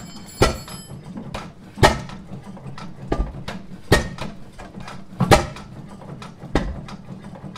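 1910 International Harvester Famous 8 hp single-cylinder stationary engine firing on its own, with five sharp exhaust bangs coming irregularly a second or two apart.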